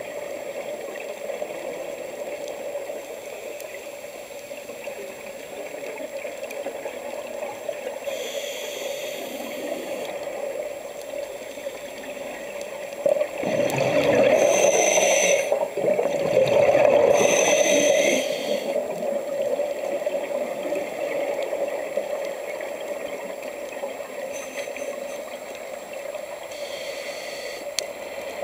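Underwater sound of a scuba diver breathing through a regulator over a steady watery hiss. Brief hisses of breathing in come and go, and about halfway through a loud bubbling exhalation comes in two surges.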